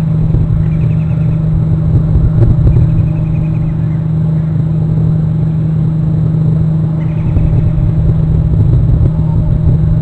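Steady low rumble with a constant low hum, the noise of an outdoor camera microphone. Over it come a few faint, short, high trilling bird calls, about half a second in, around three seconds in and around seven seconds in.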